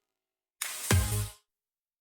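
Short electronic sound effect: a brief swish followed by a deep bass hit, lasting under a second and stopping abruptly.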